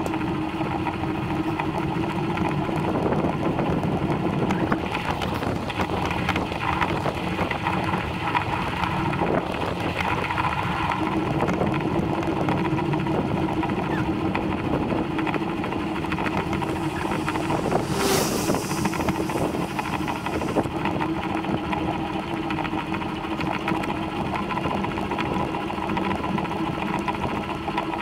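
Steady riding noise while moving along a lane: a constant hum with wind buffeting the microphone. A short hiss comes about eighteen seconds in.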